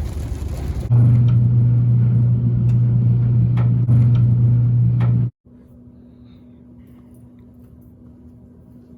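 Road and engine noise inside a moving car, with a strong steady low drone. It cuts off abruptly about five seconds in, giving way to a much quieter, steady low hum.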